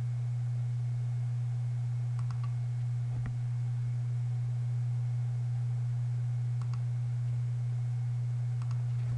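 Steady low electrical hum, with a few faint, scattered clicks from computer keyboard and mouse work.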